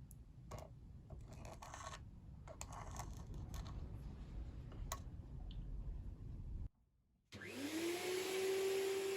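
Light clicks and scrapes of handling over a low rumble. Then, after a short break, a small electric motor spins up with a rising whine and runs on steadily with a hiss of air.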